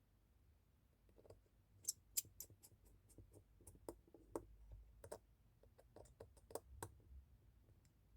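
Faint, irregular small clicks and taps, about twenty of them in a few seconds, from hand tools and small parts being handled while transferring components onto a new iPhone XS Max screen.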